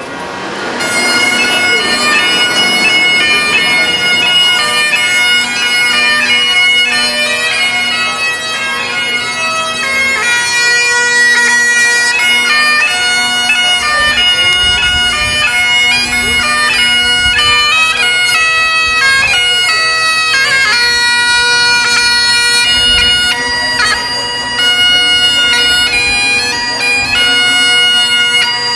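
Highland bagpipe playing a tune, its melody moving from note to note over the steady drones, coming up to full strength about a second in.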